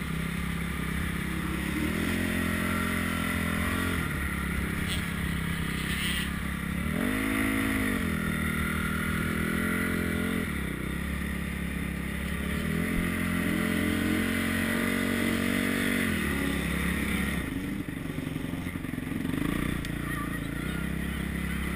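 Motocross bike engine running at low revs while ridden slowly, opened up three times. Each time the pitch rises, holds for a couple of seconds, then drops back, and the middle one is the strongest.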